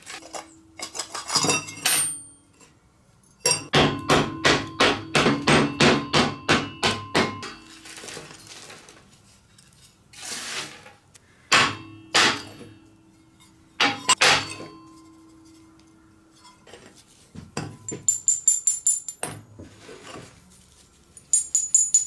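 Steel case-hardening boxes knocked and tipped on a steel welding table to empty out the charcoal: a fast run of ringing metal knocks, about six a second for four seconds, then single heavier knocks. Near the end, small carburized steel pieces clink together with a bright ring.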